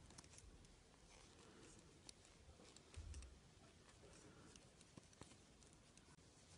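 Near silence, with a few faint ticks of thin metal knitting needles and a soft low bump about three seconds in.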